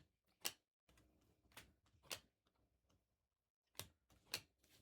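Faint, sharp clicks of trading cards being handled and flipped one after another, about five in all, over near silence.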